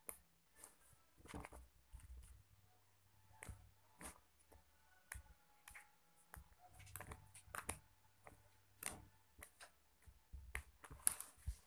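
Faint, scattered soft clicks and pops of glossy slime being stretched and squeezed in the hands.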